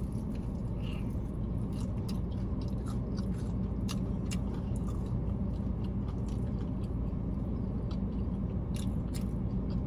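Close-up biting and chewing of a crispy breaded fried chicken wing: a string of small crunchy clicks over a steady low hum.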